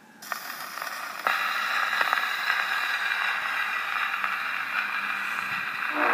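Needle of a portable gramophone running in the lead-in groove of a 78 rpm shellac record: steady surface hiss with faint crackle and a few clicks, starting suddenly and getting louder about a second in. The band's music starts right at the end.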